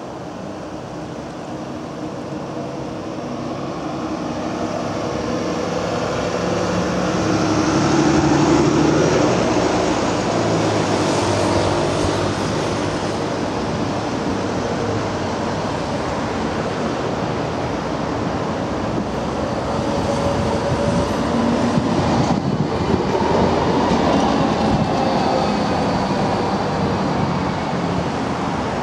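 Tram passing on street track: electric traction hum with wheels running on the rails, building up over the first several seconds, mixed with passing road traffic.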